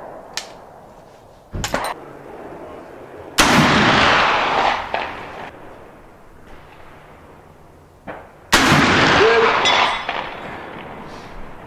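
Shiloh Sharps Model 1874 single-shot rifle in .45-70 firing black-powder loads: two heavy shots about five seconds apart, each trailing off over a second or two. A few light clicks come before and after the shots.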